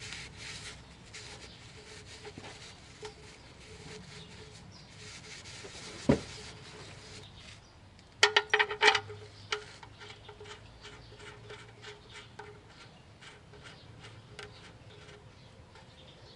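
Hands working at a steel oil pan's drain plug: rubbing and handling, a single knock about six seconds in, then a quick run of metallic clinks just after eight seconds and scattered small clicks, as the drain plug is fitted back into the pan by hand.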